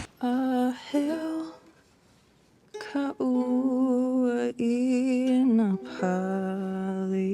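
A single voice singing or humming long held notes, with a wavering pitch on some of them and a pause of about a second near the start.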